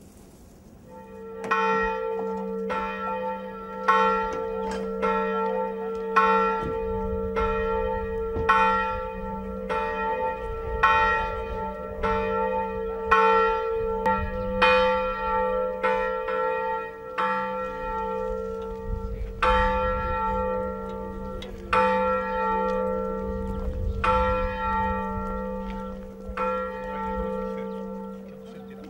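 A church bell rung over and over, about one strike a second, each stroke ringing on into the next over a steady hum. Starts about a second and a half in.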